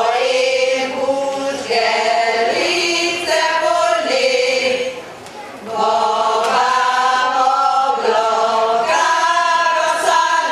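Women's choir singing unaccompanied in unison, held notes in two phrases with a short breath pause about five seconds in.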